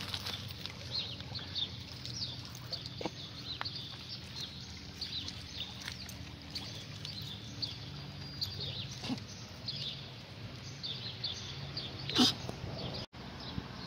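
Small birds chirping in short repeated calls over a low steady hum, with one sharp knock about twelve seconds in.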